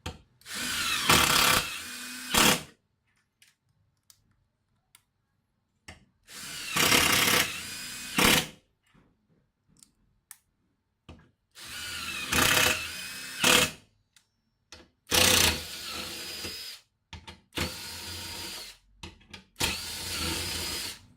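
A Makita TD134 14.4 V cordless impact driver is run in about six separate bursts of one and a half to two and a half seconds each. Most bursts get suddenly louder near their end.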